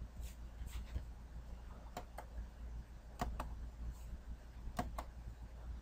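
Faint computer mouse clicks, several in quick pairs, over a low steady hum.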